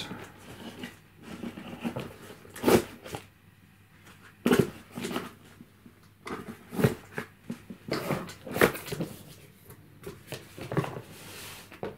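A cardboard box being opened by hand: packing tape slit with a small blade, then the cardboard flaps pulled open, heard as a string of irregular short scrapes, rustles and light knocks.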